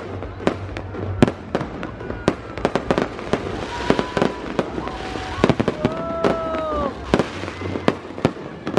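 Fireworks display: a rapid, irregular string of sharp bangs and crackles from bursting aerial shells.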